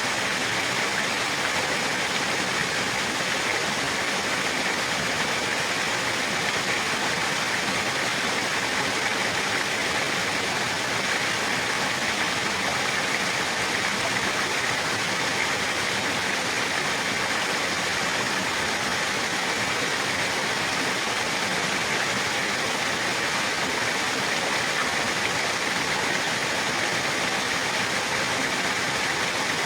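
Water rushing steadily, like a stream or small waterfall, an even hiss with no breaks.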